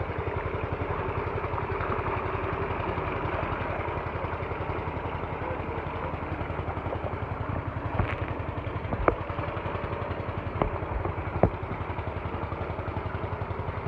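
Tube-well pump engine running steadily with an even low pulse, with water gushing from the outlet into the tank. Four sharp knocks come in the second half.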